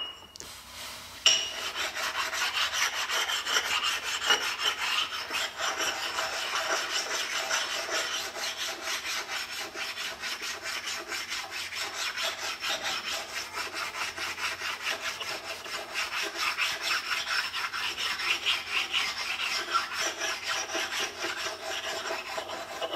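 A wet flat stone rubbed back and forth on the rusty metal face of a rotary table, stoning off rust and burrs. Quick, steady scraping strokes start about a second in.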